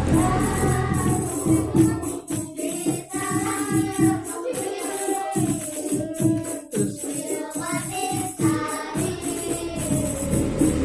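Music: singing over a steady, even beat.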